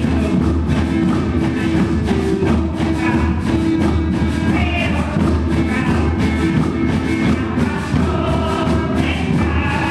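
A large ensemble of hand drums playing a steady rhythm together, with a group of voices singing over it.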